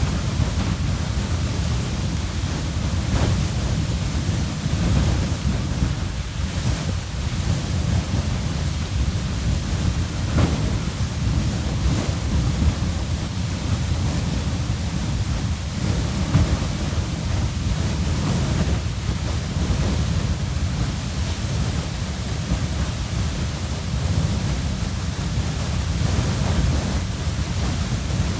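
Beehive Geyser erupting: a loud, steady rushing noise from the water column, heaviest in the low end, with no pauses.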